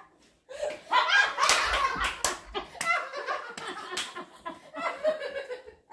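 Voices laughing and shrieking, cut by several sharp smacks, like hand claps.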